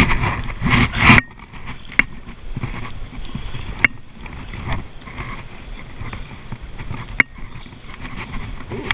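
Double-bladed paddle strokes splashing and sloshing in shallow river water beside an inflatable kayak. There is a louder rush of noise in the first second, then three sharp clicks spread through the rest.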